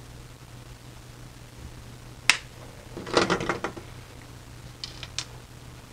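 Flush cutters snipping through thin brass rod with one sharp snap about two seconds in, followed by a short rattle of small clicks as the tool and the cut pieces are handled, and two faint ticks near the end, over a faint steady hum.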